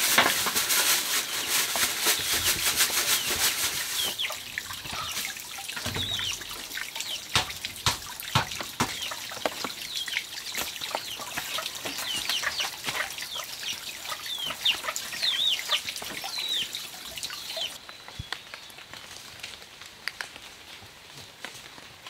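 Chickens calling in many short, high cheeps that fall in pitch, scattered among sharp knocks and clatter. In the first few seconds a dense, rapid crackling rush is the loudest sound.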